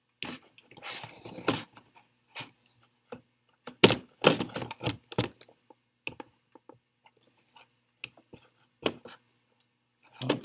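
Handling noise of a PVC valve fitting being tightened on a plastic tub: irregular clicks, scrapes and light knocks, with a jingle of keys, the loudest cluster about four seconds in.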